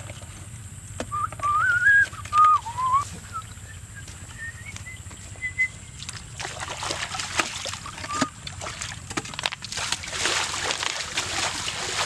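A wavering whistle lasts about two seconds, starting about a second in. From about halfway on, water splashes and sloshes in a shallow muddy pool, and near the end a bucket is dunked and swished in the water.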